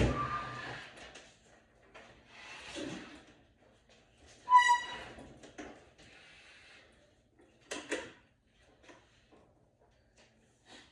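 Knocks, scraping and clicks of metal parts and tools being handled, with one sharp metallic clang that rings briefly about four and a half seconds in.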